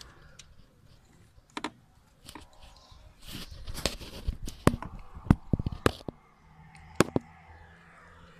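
Scattered sharp clicks and knocks of hands handling plastic hoses and parts in a car's engine bay, the loudest a little past the middle.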